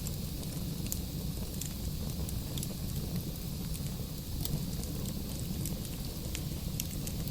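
Wood fire burning in a fireplace: a steady low rumble of flame with scattered sharp crackles and pops from the burning logs.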